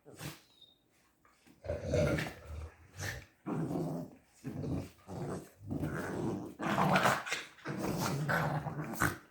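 Three-month-old puppies growling: a string of short growls, one after another, starting about a second and a half in.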